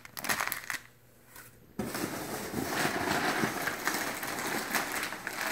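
A plastic bag crinkling briefly, then from about two seconds in a continuous rustling of foam packing peanuts as hands dig through a cardboard box.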